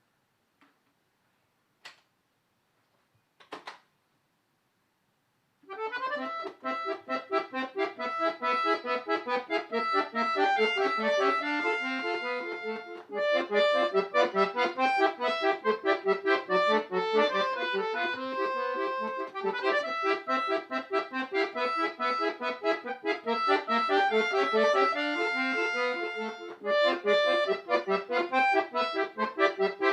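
Solo accordion music beginning about six seconds in, a piece of quick, rapidly changing notes, after a few soft clicks in near silence.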